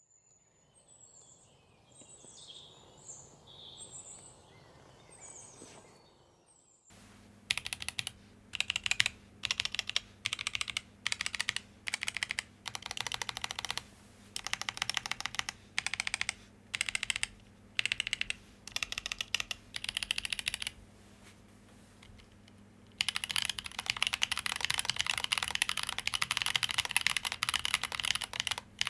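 A custom mechanical keyboard with Boba U4T tactile switches on an acrylic plate, typed on. About seven seconds in, keys start going down in short runs separated by pauses. From near the end, the typing turns into a steady, continuous stream. Before the keys start there are only a few faint high chirps.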